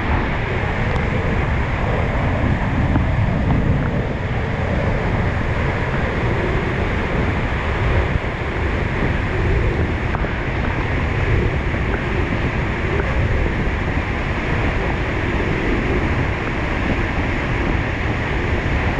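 Sgwd yr Eira waterfall in heavy flood, heard from behind the falling curtain: a loud, steady roar of falling water, with spray and wind buffeting the microphone.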